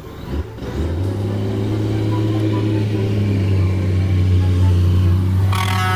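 Vehicle engine running steadily under load, getting slightly louder, with a brief higher-pitched tone near the end.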